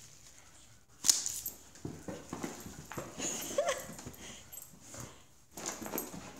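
Kerry Blue Terrier scrabbling and spinning on a hardwood floor and carpet: a run of claw clicks and scuffles, with a sharp loud scrape about a second in and a brief squeak near the middle.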